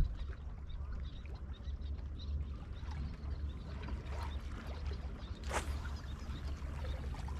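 Steady low rumble of wind on the microphone during a spinning-rod cast, with one short sharp sound from the rod and reel about five and a half seconds in.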